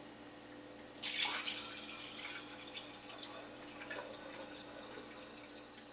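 Red sorrel drink poured from a stainless steel stockpot into a glass pitcher. The stream starts splashing in about a second in, loudest at first, then runs on more quietly as the pitcher fills.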